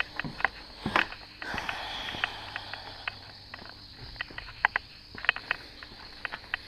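Footsteps and brushing through garden plants: an irregular scatter of short clicks and crackles, over a steady chorus of night insects.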